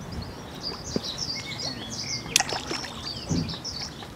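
Small songbirds chirping and twittering continuously over a low background rumble, with one sharp click a little past halfway.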